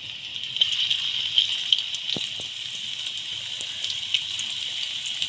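Breadcrumb-coated fish strips deep-frying in hot oil in a pan: a steady sizzle with scattered small crackles and pops.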